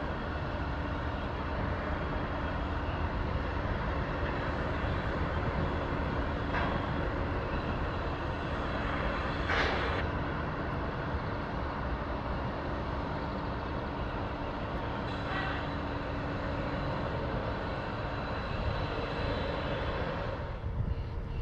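Ship's diesel engines running with a steady drone over a constant low hum, with a brief louder swell about ten seconds in.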